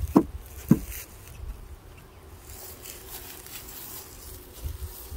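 Honeybees buzzing as a low, steady hum around an open hive whose frames are covered with bees. Two sharp knocks come in the first second.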